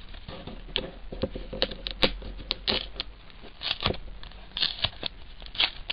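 A trading-card pack wrapper being torn open and crinkled by hand: irregular papery crackles and snaps.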